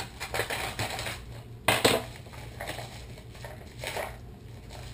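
Paper mailing envelope being slit and pulled open by hand: crinkling and tearing in several irregular bursts, the loudest about two seconds in.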